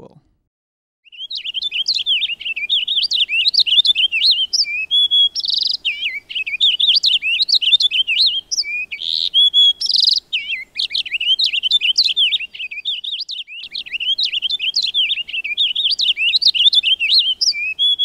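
Purple finch singing: a fast, continuous warble of quick rising and falling notes, in several long phrases with brief pauses, starting about a second in.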